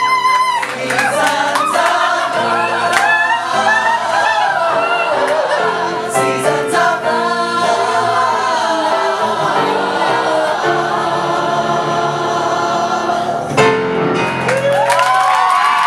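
A group of voices sings a song together over piano accompaniment. A lead singer's high held note ends just after the start. Near the end the voices slide up into a held chord.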